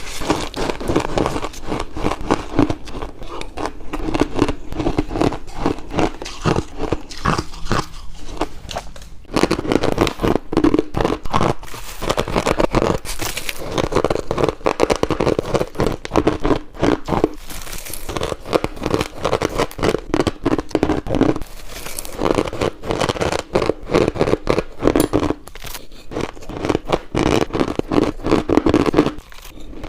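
Ice being bitten and chewed close to the microphone: continuous loud crunching and crackling with rapid, irregular cracks, easing briefly about eight seconds in.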